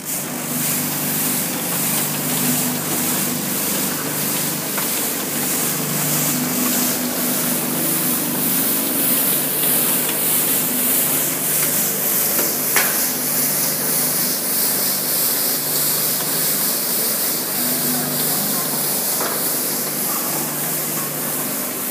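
Stainless steel rice packing machine with bucket elevator starting up abruptly and running. Motors hum steadily under a loud, even hiss, with a faint regular pulsing throughout.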